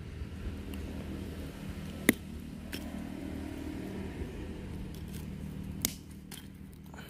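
A hand-held stone striking seeds on a concrete slab to crack them open: a sharp crack about two seconds in and another just before the six-second mark, with a few lighter taps, over a steady low hum.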